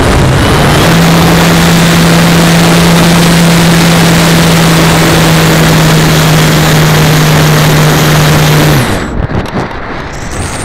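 Hyperion G3025-10 brushless electric motor driving the propeller of a Pulsar 3.2 m electric glider at full power during the climb: a loud, steady drone, its pitch stepping up slightly about half a second in. The motor cuts off abruptly near the end, leaving only wind rushing over the airframe.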